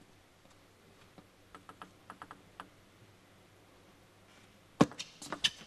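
Table tennis ball clicking: a few faint taps while the ball is readied, then a sharp click of the serve off the bat about five seconds in, followed by quick ticks of the ball hitting table and bats as the rally starts.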